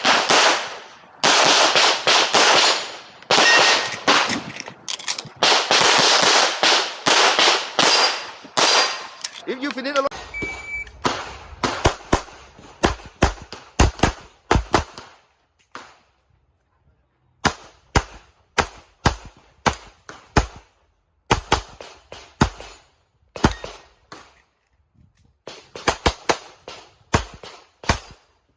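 Handgun shots fired during an IPSC course of fire. For the first ten seconds they come in rapid strings, loud and echoing. About ten seconds in there is a short electronic beep, the shot timer's start signal, and then sharper shots follow in pairs and short strings with pauses between them.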